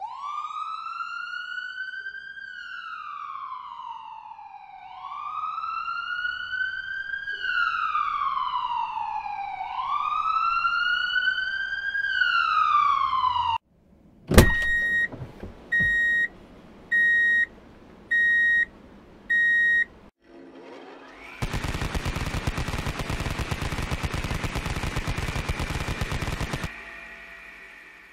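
A siren wailing up and down three times, growing louder. It is followed by a sharp bang, five short electronic beeps about a second apart, and a harsh rattling buzz of about five seconds that fades out.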